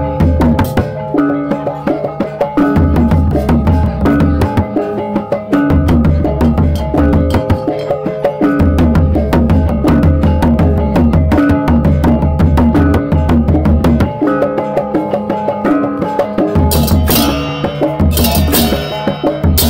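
Balinese gamelan music: ringing tuned percussion over a pulsing low drum beat, with fast, dense strokes throughout. Bright, splashy high strokes grow loud near the end.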